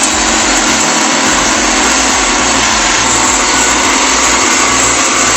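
A heavy machine's diesel engine running loud and steady under a dense, even hiss.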